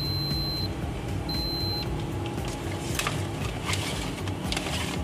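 Clamp meter's continuity beeper sounding a steady high beep at the start and again about a second and a half in, as the probes bridge a conductor: the beep signals an unbroken circuit, meaning the cable is good. Light clicks of the probes follow, over background music.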